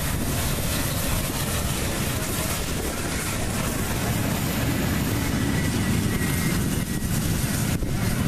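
Class 52 steam locomotive passing close by under steam, its tender and passenger coaches rolling past on the rails in a loud, steady rumble.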